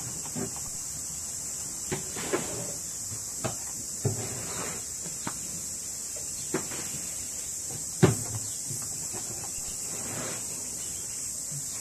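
Irregular wooden knocks and thumps as a white zebu cow's head and chin bump against the wooden fence rail it rests on, the loudest about eight seconds in, over a steady high hiss.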